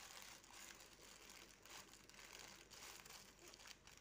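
Faint crinkling and rustling of a parcel's silver plastic wrapping as hands pull at it to open it, in small irregular crackles.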